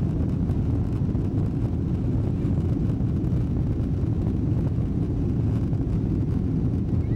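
Boeing 777-200 cabin noise while the airliner rolls on the ground: a steady low rumble of engines and wheels.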